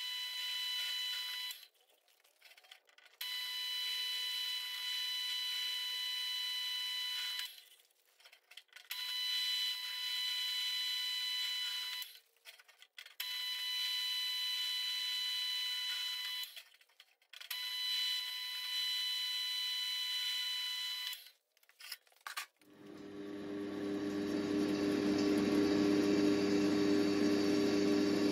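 Pillar drill boring bolt holes through a welded steel riser block: five stretches of a steady high whine, each a few seconds long, broken by short pauses as each hole is done. Near the end the drill press motor sets in with a louder, lower steady hum while the bit cuts.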